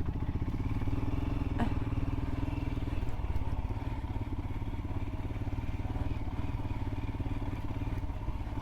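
Royal Enfield Himalayan's single-cylinder engine running steadily, with one short sharp knock about one and a half seconds in.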